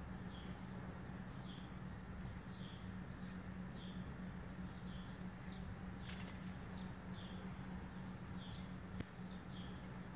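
Short, high chirps repeated about once or twice a second from a small animal or bird, over a steady low hum, with one sharp click about nine seconds in.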